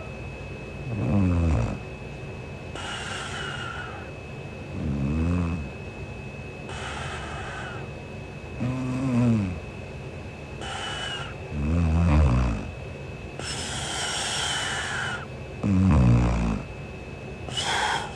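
A sleeping young woman snoring: five low snores on the in-breath, about one every four seconds, each followed by a breathy out-breath.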